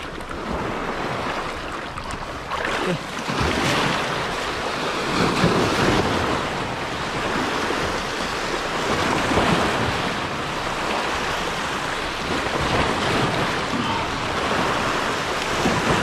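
Small sea waves breaking and washing over shoreline rocks, the surf getting louder about three seconds in and then swelling and easing every few seconds.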